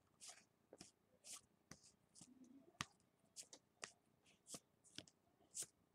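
Faint, irregular clicks and light rustles of Panini Contenders football trading cards being flipped through by hand.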